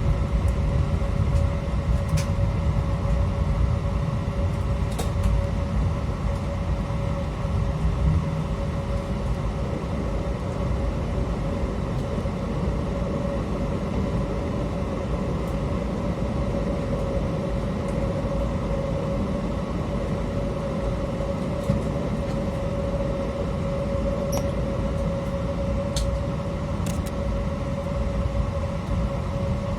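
Steady cabin noise inside an Airbus A321 with IAE V2500 engines running as the airliner taxis before takeoff: a low rumble with a constant hum and a few faint clicks.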